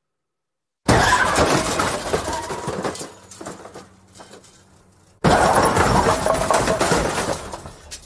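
Two car crashes, one after another: a sudden loud impact of crunching metal and shattering glass about a second in, trailing off into scattering debris, then a second crash about five seconds in that fades away near the end.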